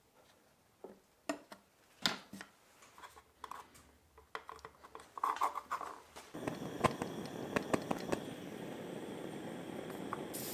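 Utility knife blade cutting through soft modelling clay on a wooden bench, and clay being pressed into place around a thin metal part: scattered soft clicks and taps. About six seconds in, a steady hiss sets in under further light clicks from handling.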